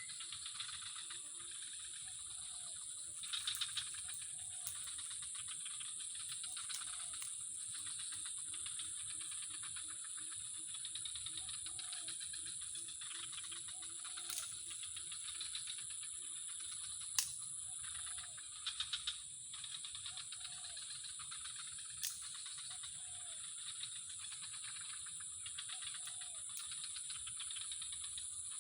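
Outdoor animal sounds: a steady high-pitched drone, short calls repeating every second or two, and a fast pulsing call that stops about halfway through, with a few sharp clicks.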